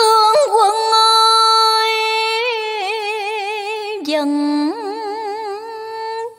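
Cải lương music: a single melody line of long held notes with a wide, slow vibrato, starting suddenly. It drops to a lower note about four seconds in and climbs back up soon after.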